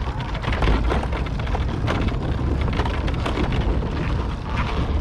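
Hard wheels of a large prop panel rolling over a concrete sidewalk: a continuous low rumble with scattered clacks and knocks as they cross the joints, mixed with wind buffeting the microphone.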